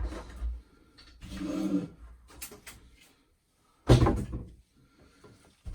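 Hard objects knocking and clicking as they are handled during work behind a washing machine: a few light clicks, then one loud clunk about four seconds in.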